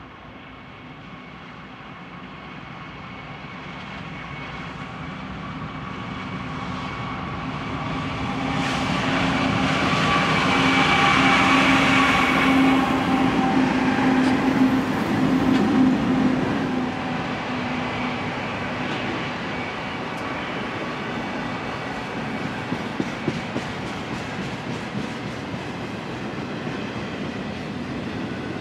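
Westbound BNSF intermodal train drifting downgrade. The diesel locomotives' steady hum grows as they approach, is loudest about a dozen seconds in, then fades as the flatcars carrying trailers roll past, their wheels clicking over the rail joints.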